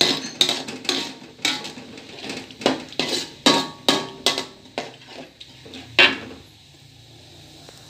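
A spatula knocking and scraping against an aluminium wok as a thin spiced sauce is stirred: a quick, irregular run of clacks that stops about six seconds in.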